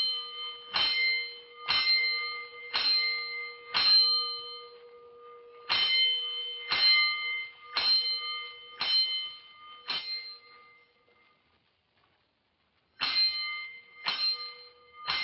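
Fire alarm gong struck in rounds of five, about one stroke a second, each stroke ringing on: the five-bell alarm signal. Two full rounds with a short pause between them, then a silence of about two seconds, and a third round begins near the end.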